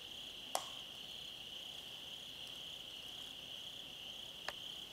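A steady, high-pitched chorus of night insects, with two sharp clicks about four seconds apart, the first the louder.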